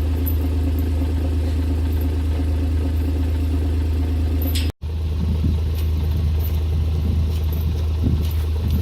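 Side-by-side utility vehicle's engine running steadily, a loud low drone, with the audio cutting out for an instant about halfway through and a few light rattles after.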